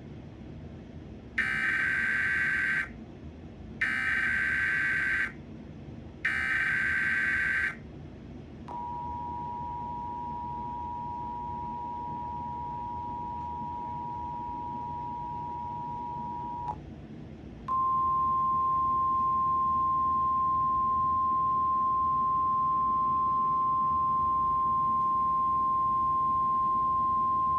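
Emergency Alert System tones. Three short SAME data bursts sound as harsh digital warbles, then the two-tone attention signal holds steady for about eight seconds. After a brief gap, a single steady 1050 Hz weather-radio alert tone follows for about ten seconds.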